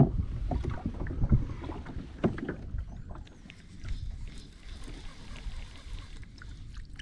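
Water sloshing against the plastic hull of a Vanhunks Sauger 12-foot fishing kayak, with several knocks on the hull in the first couple of seconds, over a low rumble of wind on the microphone.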